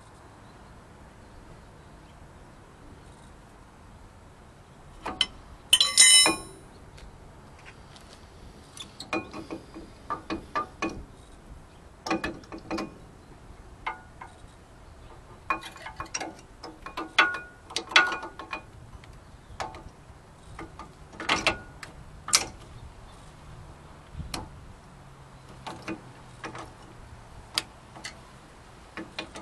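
Metal-on-metal clinks and knocks of hand tools and brake caliper parts being handled and fitted over a brake rotor. A single loud, ringing metallic clang comes about six seconds in, followed by scattered sharp clicks and knocks.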